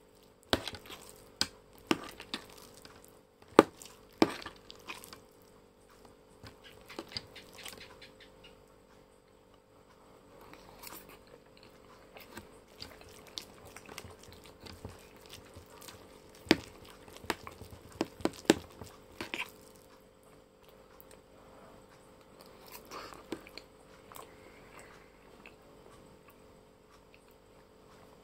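Close-miked eating of noodles: soft chewing with sharp clicks of a metal fork against the plate. The clicks come in a cluster in the first few seconds and again about two-thirds of the way through.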